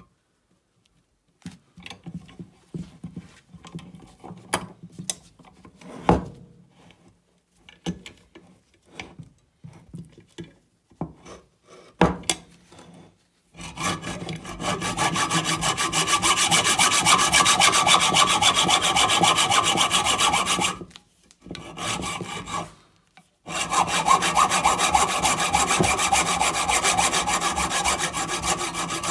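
Hacksaw cutting through a brass 9 mm cartridge case clamped in a vise. First come scattered light scrapes and ticks. From about thirteen seconds in there are steady sawing strokes, with a short break about eight seconds later before the sawing resumes.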